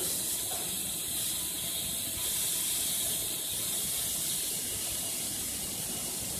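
Automatic metal-cutting band saw running through a metal bar: a steady high hiss of the blade in the cut over the machine's running noise, brightening for a while from about two seconds in.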